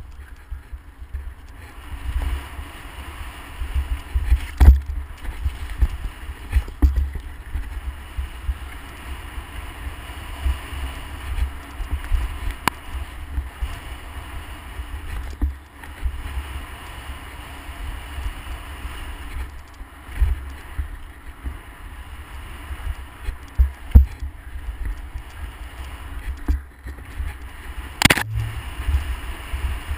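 Mountain bike riding fast down a gravel forest trail: wind rumbling on the camera mic over a steady rush of tyres on loose gravel. Sharp knocks from the bike hitting bumps come now and then, the loudest near the end.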